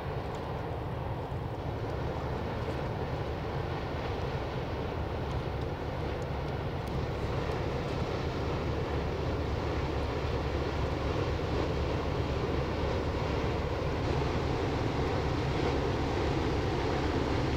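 Steady low rumble of a passing container ship, its engine and the rush of its bow wave, growing slowly louder as the ship draws abreast.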